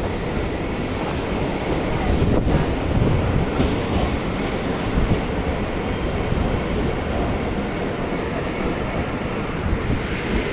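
Electric multiple-unit (EMU) suburban train running on its rails, a steady rumble of the carriage, with a faint high wheel squeal joining a few seconds in.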